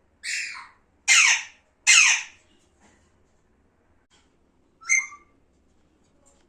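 Pet parrot calling: three loud squawks in quick succession, each sliding down in pitch, then a single shorter call about five seconds in.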